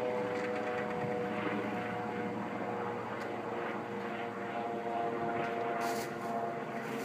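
Helicopter flying high overhead: a steady drone with a few held tones.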